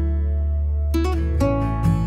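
Background music led by acoustic guitar: a chord rings on, then a new chord is struck about a second in.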